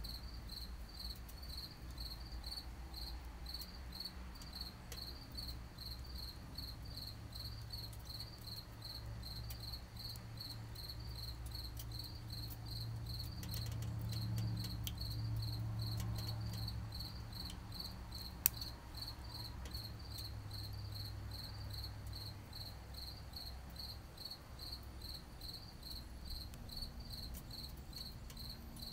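A cricket chirping steadily, about two chirps a second, over a low rumble that swells for a few seconds midway. The burning twigs give a few faint crackles and one sharp pop a little past halfway.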